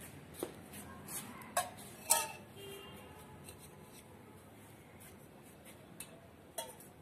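Small metal food bowl clinking and knocking on a stone-tile floor as a kitten eats from it and nudges it with its face: a handful of short sharp clinks, the loudest about two seconds in with a brief ring.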